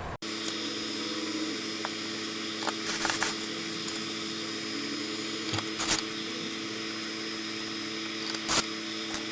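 A steady hum of several even tones with a faint high whine, broken by a few sharp knocks or clicks, three of them louder, about three, six and eight and a half seconds in.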